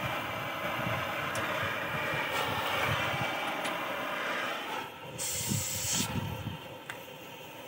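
LPG-oxygen cutting torch running with a steady hiss as it cuts steel, cutting back about five seconds in. A brief, high gas hiss about a second long follows.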